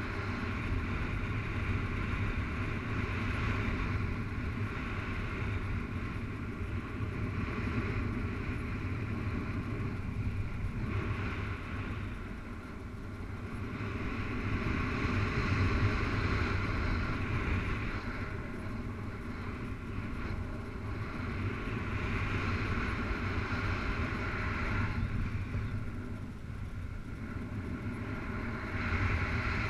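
Wind rushing over the camera microphone of a paraglider in flight: a steady low buffeting rumble with a higher hiss that swells and fades every few seconds.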